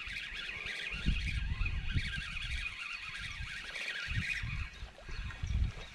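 Spinning reel being cranked while a hooked perch is played in, its whir pausing briefly a few times, over low wind rumble on the microphone.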